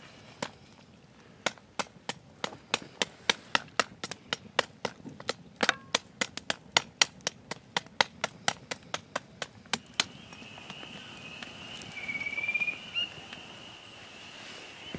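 Machete blade chopping a stick of firewood in a quick run of sharp knocks, about three a second. About ten seconds in, this gives way to a steady high-pitched chorus of spring frogs with trills over it.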